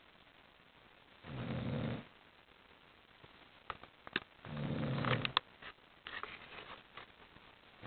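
Sleeping dog snoring: two loud rasping snores about three seconds apart, with a few faint sharp clicks between and after them.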